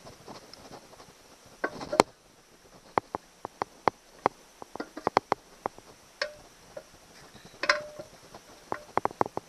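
Metal outboard housing parts knocking and clinking as the midsection is worked onto the lower unit. There is one loud knock about two seconds in, then scattered light, sharp clicks, some with a brief ring.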